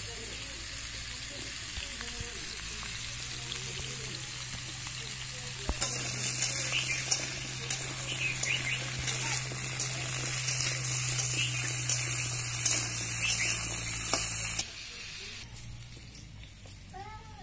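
Cubes of vegetable sizzling in hot oil in an iron wok, with a metal spatula stirring and scraping against the pan from about six seconds in. The sizzling gets abruptly quieter near the end.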